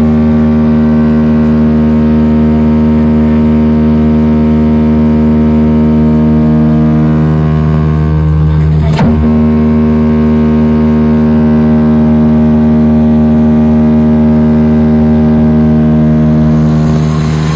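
A loud engine running at a constant speed, a steady drone of fixed pitch with no revving, and one brief knock about nine seconds in.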